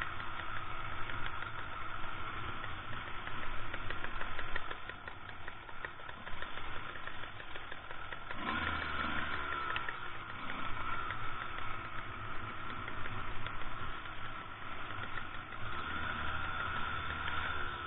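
Two-stroke enduro motorcycle engines running at low trail speed, the revs rising and falling with the throttle, most plainly about halfway through.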